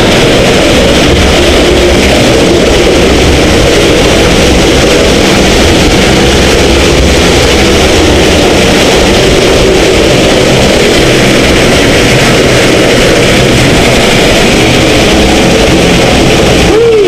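Waterfall pouring right beside the microphone: a loud, steady rush of falling water that does not let up.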